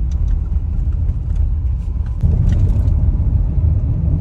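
Low road rumble and tyre noise inside a moving car's cabin on a rough desert track, with scattered light rattles and clicks. It steps up in loudness about two seconds in.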